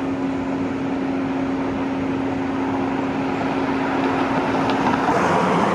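Steady motor-vehicle road noise with a constant hum that cuts off about five seconds in, followed by a slight swell of noise.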